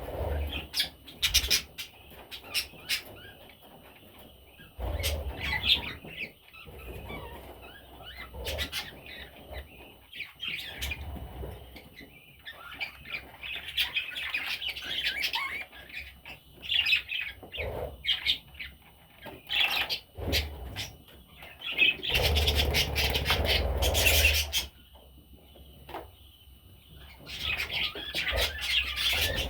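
Pet budgerigars chirping and warbling in a steady chatter, with several louder bursts of fluttering wings, the longest lasting about two seconds near the end.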